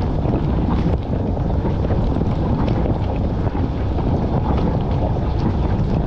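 Dishwasher running its wash cycle, heard from inside the tub: water jets spraying and splashing over plates and racks, a steady rushing with scattered small ticks.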